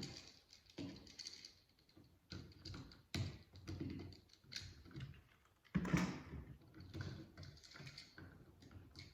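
Irregular small clicks and rattles from handling a plastic wall outlet and its copper ground wire while the wire is fitted, with a sharper knock about three seconds in and a louder thump near six seconds.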